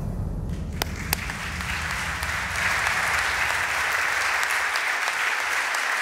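Audience applauding: a couple of single claps about a second in, then steady applause from the whole room.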